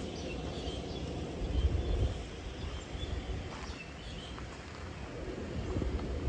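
Lakeside outdoor ambience: a steady low rumble of distant road traffic and wind, with small birds chirping high and briefly through the first few seconds. The low rumble swells louder about a second and a half in.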